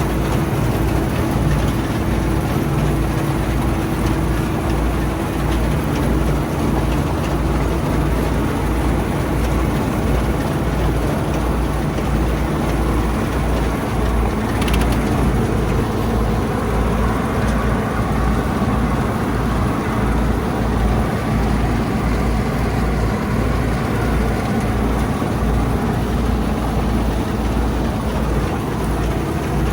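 Old Bizon combine harvester running, a steady low engine drone that holds even throughout.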